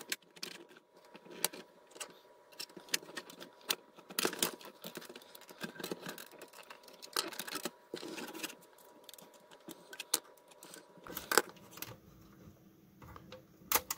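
Irregular clicks, taps and scrapes of pry tools and a screwdriver working at the seams of a SlingBox 500 streaming box's case as it is being prised open.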